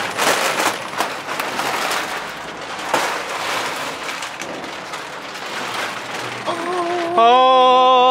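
Plastic stretch wrap and bubble wrap being pulled and torn off a machine, a dense crinkling and crackling with a few sharp snaps. Near the end a person lets out a long, drawn-out "ohhh".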